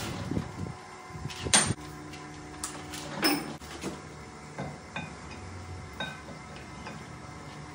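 Steel tooling knocking and clanking against a manual lathe's tool post and carriage as a long boring bar is set by hand. There is a sharp knock about one and a half seconds in, then a ringing metallic clank just after three seconds, and lighter taps later, over a low steady hum.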